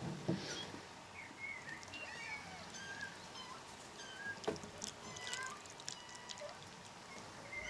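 Faint, high-pitched meowing of young kittens: many short calls scattered throughout, with a soft knock about four and a half seconds in.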